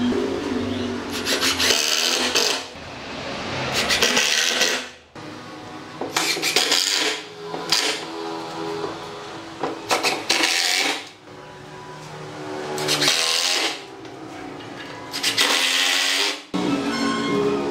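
Cordless impact driver driving screws through a pine frame into a table leg, in about six bursts of roughly a second each, over background music.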